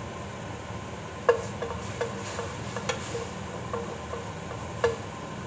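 Wooden spoon knocking and scraping against the inside of a metal pot: about a dozen uneven taps over some three and a half seconds, each with a short ring, the first and last the loudest. A steady hiss underneath.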